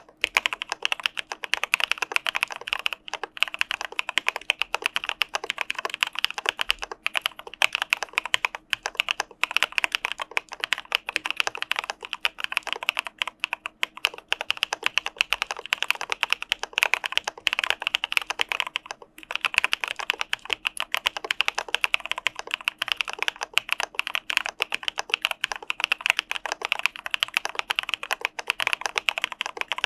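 Fast, continuous typing on an Arisu Alice-layout mechanical keyboard with CPSD linear switches: a dense stream of keystroke clacks, broken by brief pauses about 3, 9 and 19 seconds in.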